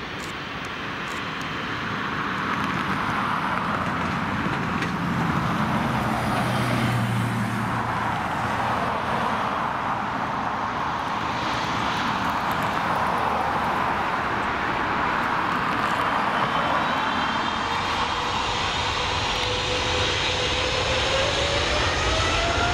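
Jet engines of an Air Canada Boeing 777 running as it moves on the runway: a steady jet rumble and hiss that grows louder over the first two seconds. Near the end a whine rises in pitch.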